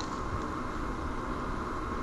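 Steady outdoor background noise: a hiss with a low rumble and a faint steady tone, with a couple of faint ticks near the start.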